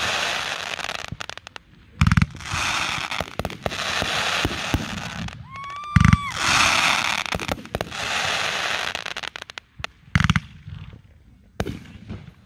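Fireworks bursting: three sharp bangs about four seconds apart, each followed by a few seconds of dense crackling from crackling-star effects.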